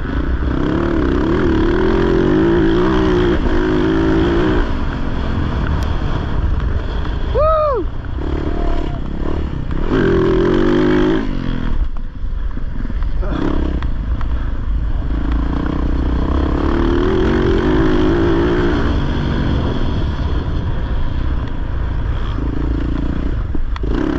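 Off-road racing motorcycle engine running hard under the rider, its pitch rising and falling again and again as the throttle opens and closes, with wind rumble on the on-board microphone. About seven and a half seconds in the engine pitch shoots up and drops back sharply within half a second.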